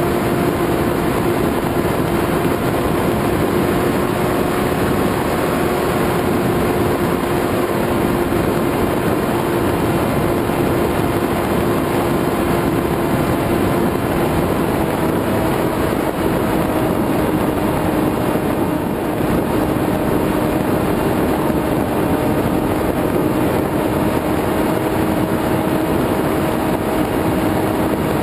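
An FPV drone's electric motors and propellers running steadily through a flight, heard from the onboard camera as a steady hum under a rush of wind noise. The hum sinks slightly in pitch over the stretch.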